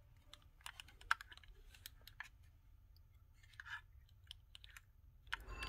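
Faint, scattered plastic clicks and taps as an HO-scale diesel locomotive's plastic body shell is handled and pressed down onto its chassis.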